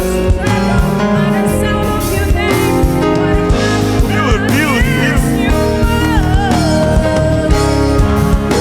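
Live gospel band and choir rehearsing a song: held chords over bass and drums, with a solo vocal run of quick bends about four seconds in.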